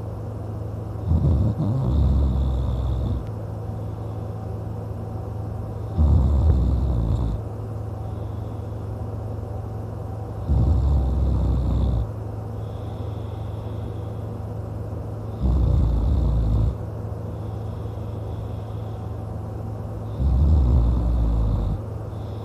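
A man snoring kinda loudly in deep sleep: five snores about every four to five seconds, each lasting one to two seconds, over a steady low hum.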